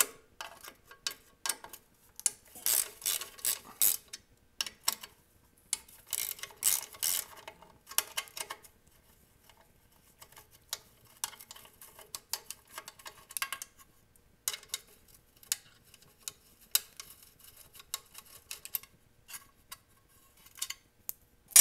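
Socket ratchet clicking in several quick bursts as the 8 mm bolts at the base of a Kohler V-twin's air-cleaner housing are loosened. A sharp metallic clink rings out at the very end.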